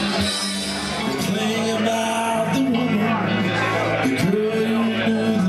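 Karaoke backing music playing steadily through a bar's sound system, with a voice faintly singing along.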